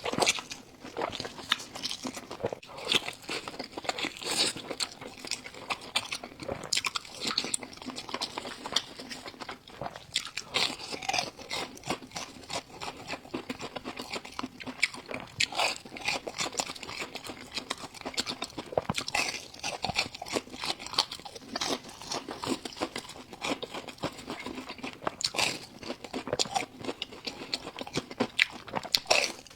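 A person eating crunchy food: quick, irregular crisp bites and chewing, one after another.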